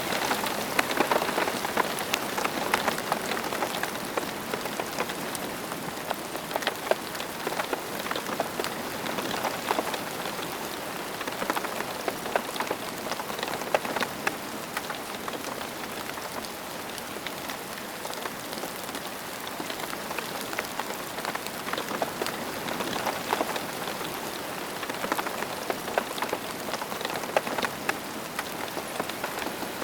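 Steady rain falling on a surface, a dense patter of many close drops with no thunder.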